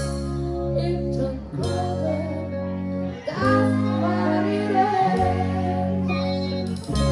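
Live band music from a pop medley: sustained chords that change every second or two, with a melody line over them.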